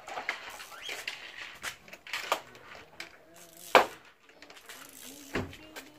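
Sharp metallic clicks and clinks of a hand tool and loose bolts as a wheel-arch flare is unbolted from a ute: a handful of short knocks at irregular intervals, the loudest just before the four-second mark.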